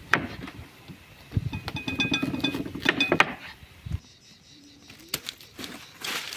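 Kitchen clatter: metal utensils clinking and knocking against pots and pans, a quick run of clinks with short ringing tones. The sound drops off abruptly about four seconds in and gives way to a quiet hiss near the end.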